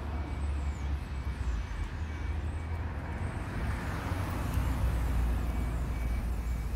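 A level crossing warning alarm sounding as short, evenly repeated high tones while the warning lights change from amber to flashing red. A Mini hatchback drives over the crossing, its road noise swelling and loudest about four to five seconds in, over a steady low rumble.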